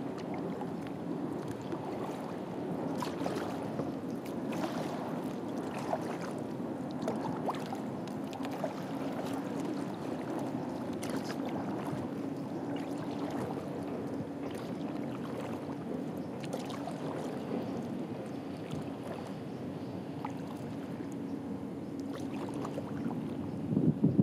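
Kayak moving over calm water: soft water noise and small irregular drips and splashes against the hull, over a steady low hum. The water noise swells louder right at the end.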